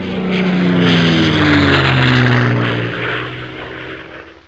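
Aircraft flyby sound effect: an engine drone that swells, drops steadily in pitch as it passes, and fades out.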